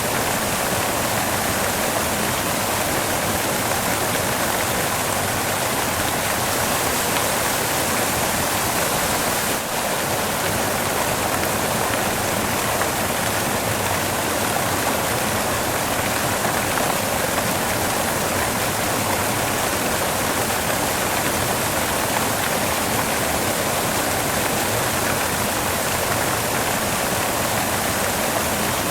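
Steady white noise: an even, unchanging hiss spread across the whole range, with a brief dip in level about ten seconds in.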